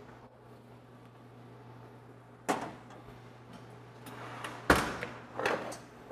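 Sharp metal clunks and knocks from an oven door and a heavy stew pot being handled: one about two and a half seconds in, then a cluster near the end, the loudest a heavy thud. A steady low hum runs underneath.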